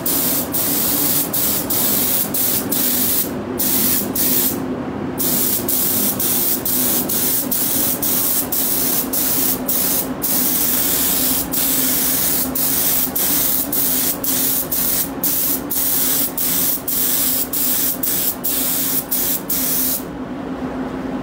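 Gravity-feed paint spray gun hissing as paint is laid on in passes, the hiss broken by many short gaps where the trigger is let off. The hiss stops about a second before the end, leaving a steady low hum underneath.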